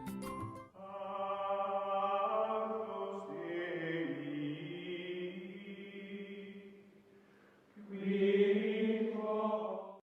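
Outro music of long, held chanting voices: one sustained passage with slowly shifting pitch that fades out about seven seconds in, then a second held chord from about eight seconds that cuts off abruptly.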